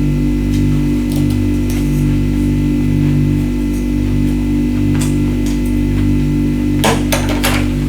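A steady low humming background, music-like with a slowly pulsing lower part. Near the end comes a quick cluster of crisp crunches, typical of teeth biting through ice, with a few faint clicks scattered before it.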